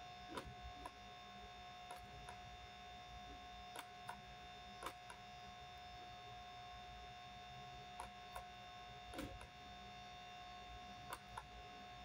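Faint steady electrical hum with a thin constant whine, broken by about a dozen short, irregular clicks of a computer mouse, some in quick pairs.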